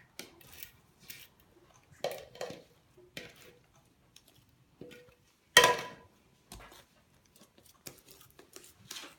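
Scattered clinks and knocks of a spoon and a bowl being handled and set down, with one louder ringing clink about five and a half seconds in.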